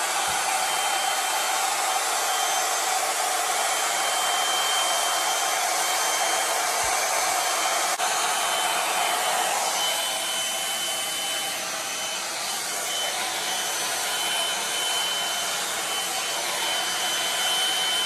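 One-step hair dryer brush, a hot-air dryer and round brush in one, blowing steadily, with a faint steady whine in the airflow. It gets slightly quieter for a few seconds about halfway through, then picks up again.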